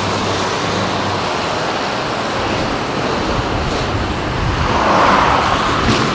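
Motorway traffic passing close by, a steady wash of tyre and engine noise with a low rumble building, and one vehicle swelling louder as it goes past about five seconds in.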